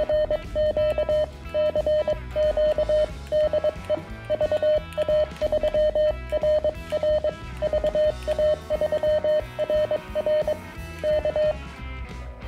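Morse code sidetone from a Venus SW-3B QRP CW transceiver: a steady single-pitch beep keyed on and off in short and long elements as the operator sends with a key or paddle, stopping about a second before the end. Background music with guitar and drums plays underneath.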